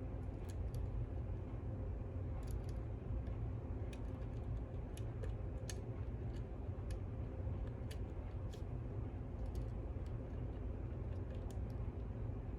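Pick working the pins inside a lock: scattered light metallic clicks as the pins are lifted and set, over a steady low hum.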